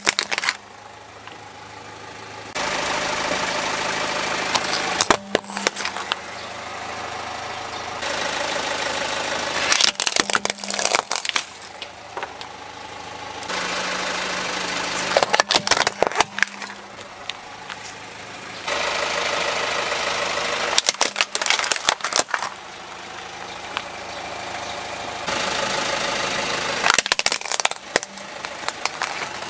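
A car tyre rolls over small plastic toy vehicles and crushes them in bursts of sharp cracking and crunching, about five times. Before each crush there is a stretch of steady car engine running as the car creeps forward.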